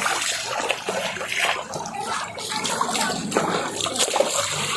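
Running fresh water flowing and splashing, an even rush broken by irregular splashes.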